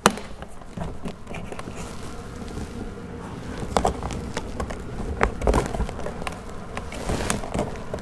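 A plastic trim tool and a thin pick prying at a car door's handle trim cap, giving scattered sharp clicks and scrapes of plastic over low background noise.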